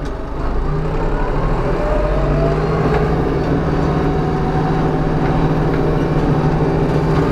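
Ursus 3502 tractor's diesel engine running steadily while driving a mower through orchard prunings, a little louder from about half a second in.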